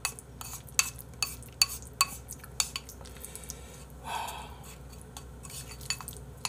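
A spoon stirring and mashing rice and potatoes in a bowl, with irregular clicks and scrapes against the bowl, busiest in the first few seconds and sparser after.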